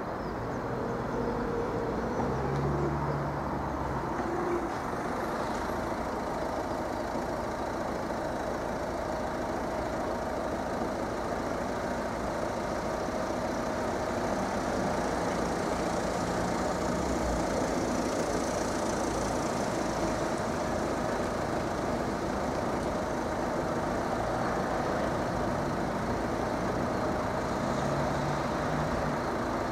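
Steady road-traffic rumble of vehicle engines idling and running at a closed level crossing.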